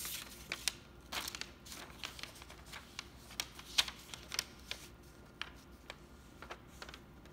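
A sheet of paper being flipped over, rustling for about the first second and a half, then a run of small sharp crinkles and ticks from the paper being handled that thin out after about five seconds.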